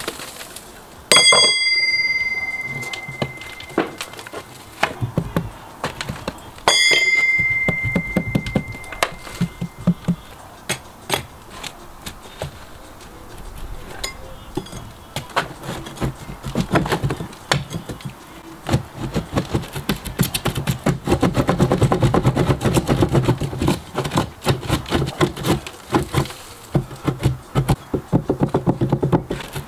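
A metal Crittall window frame being worked loose with hand tools. Two sharp metallic clangs about five seconds apart each ring on briefly. Irregular taps, knocks and scrapes follow, becoming a dense rapid scraping or chipping in the second half.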